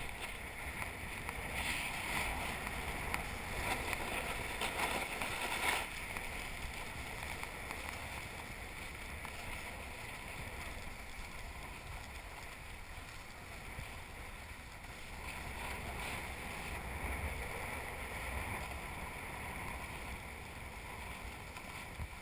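Steady rush of sliding over packed snow on a downhill run, mixed with wind on the microphone. It is louder and scrapier for the first six seconds, drops off suddenly about six seconds in, then carries on as a softer, even rush.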